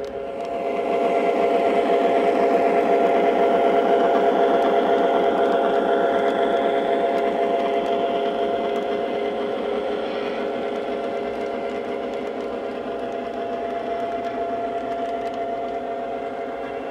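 Lionel O-gauge model freight train running past on three-rail track: a steady mechanical hum with a fast clatter of wheels, growing louder about a second in and slowly fading as the cars go by.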